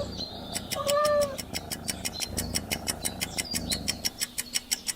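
Domestic cat meowing once, a short level call about a second in, followed by a rapid even ticking, about eight ticks a second, to the end.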